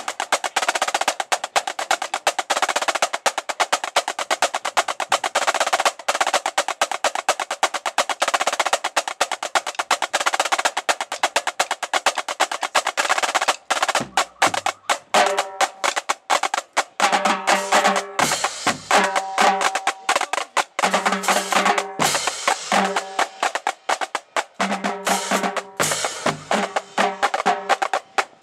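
Marching drumline playing a cadence: snare drums in rapid, dense strokes and rolls. From about halfway, the tuned tenor drums come through with pitched strokes, and deep low drum hits fall a few times between phrases.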